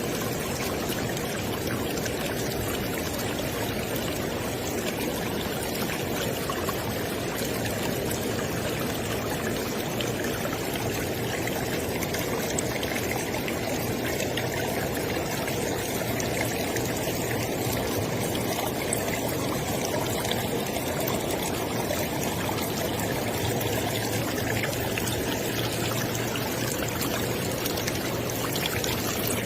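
River water flowing steadily over rocks, a continuous rushing and splashing with no pause or change.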